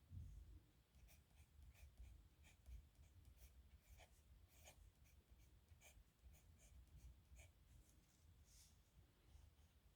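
Faint scratching of a steel nib pen on paper: short, quick strokes, several a second, coming irregularly as letters are written.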